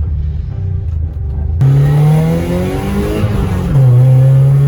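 BMW E30's engine accelerating: about a second and a half in the revs rise sharply and climb, then drop about a second later as it is shifted up a gear, and it pulls on steadily.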